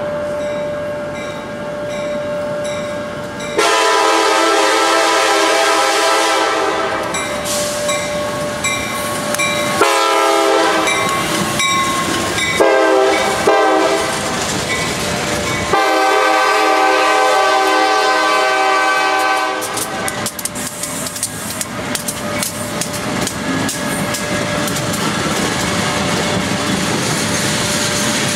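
CSX freight train with EMD SD70M, SD70MAC and SD80MAC diesel locomotives passing close by, its air horn sounding a series of long and shorter blasts for the first twenty seconds or so. After that the tank cars roll past, their wheels clicking over the rail joints.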